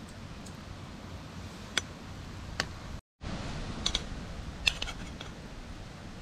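Metal fork clinking and scraping against an aluminium camp cooker plate: several sharp, separate clinks over a steady background hiss. The sound cuts out completely for a moment about three seconds in.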